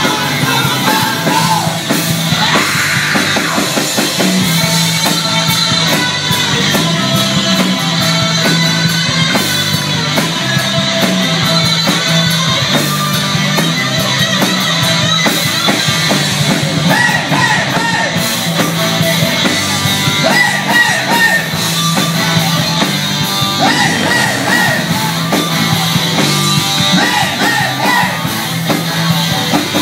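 Background music: a rock song with a repeating bass line and singing, the vocals clearest in the second half.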